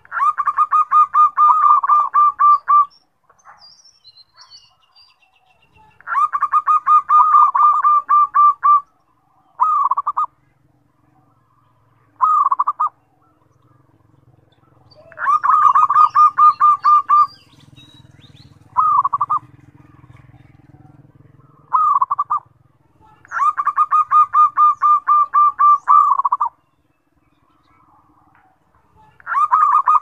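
Zebra dove (perkutut) cooing: long rolling runs of rapid staccato notes, each two to three seconds long, alternating with short bursts of a few notes, about nine phrases in all.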